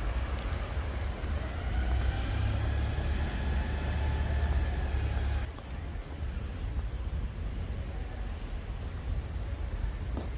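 Street traffic: a motor vehicle passes close by with a low rumble and a faint whine, loudest from about one to five seconds in, then the sound drops back to the steady hum of the street.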